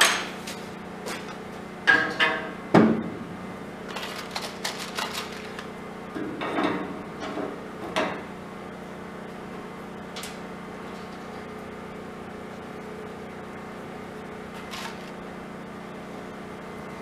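Sheet-metal and metal parts knocking and clinking as they are handled and fitted, with a ringing clang about two seconds in and a cluster of lighter clinks up to about eight seconds in, then only a steady low workshop hum.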